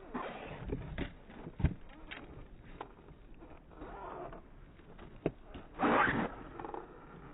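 Skateboard wheels rolling on pavement, with sharp clacks of the board being kicked and landed, the loudest about one and a half seconds in and another about five seconds in, and a louder scraping rush about six seconds in.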